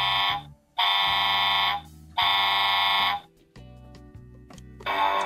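Toy fire engine's electronic horn honking three times, each blast about a second long with short gaps between. Music with a strummed guitar starts near the end.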